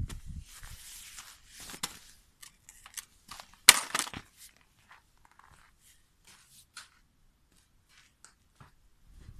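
Handling noises: rustling in the first two seconds, then a scatter of clicks and knocks, the loudest a sharp knock just under four seconds in, growing sparse toward the end.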